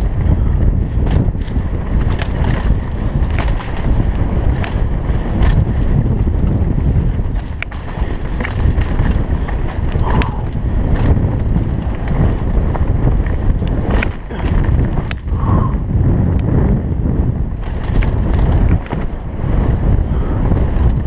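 Wind rushing over a helmet-mounted camera's microphone on a fast downhill mountain bike run, with tyres on dirt and scattered sharp clicks and knocks from the bike over rocks.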